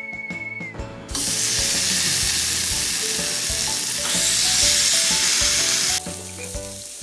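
Meat sizzling on a yakiniku table grill: a loud, even sizzle that starts about a second in and cuts off abruptly about a second before the end, over background music.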